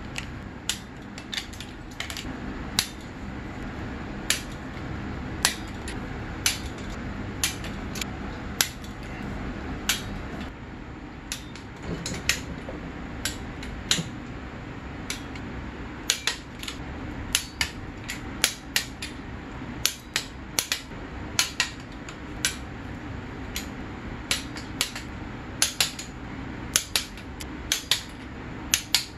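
Click-type torque wrench on crow's-foot heads clicking again and again, sharp metal clicks about one or two a second, as the cylinder base nuts of a snowmobile two-stroke engine are brought up to torque in steps.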